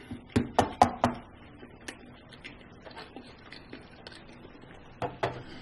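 Close-miked mouth sounds of a man chewing food: about a second in, a quick run of four sharp wet smacks, then quiet chewing with faint clicks, and a couple more smacks near the end.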